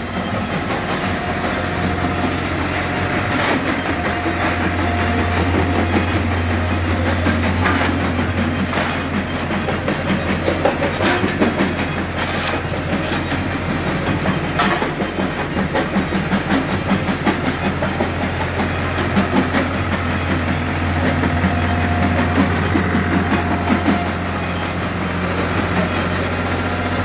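Old multi-cylinder stationary engine with a big flywheel, running steadily with a strong low hum. Sharp knocks and clatter of stones and a shovel come through now and then.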